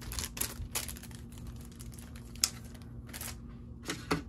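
Clear plastic packaging crinkling and rustling in short irregular crackles as a packaged sticker pack is handled, with a sharp click about two and a half seconds in.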